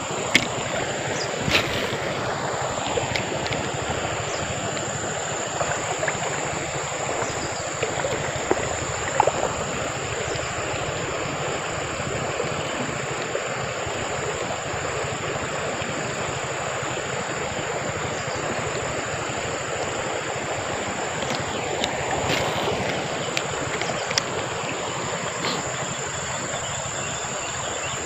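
Continuous rush of flowing stream water under a steady high-pitched insect drone, with a few light clicks.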